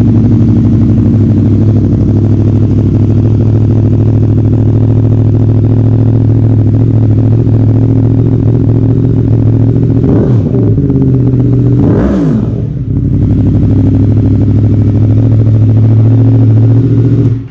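Yamaha MT-10 SP's crossplane inline-four running at a loud, steady idle through an Akrapovic exhaust with link pipe. It is blipped twice past the middle, the pitch rising and falling each time, and the engine cuts off suddenly near the end.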